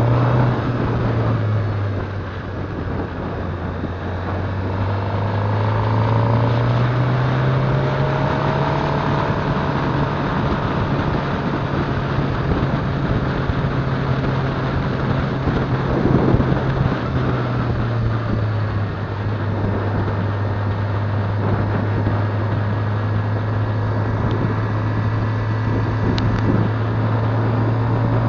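Motorcycle engine running at road speed with wind and road noise, its note dropping and rising a few times with the throttle. A single short knock partway through.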